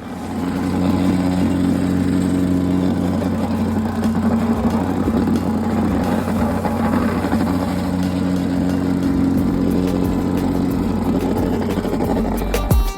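Small engine of a vibratory plate compactor running steadily as it tamps freshly poured asphalt patch material, starting about half a second in.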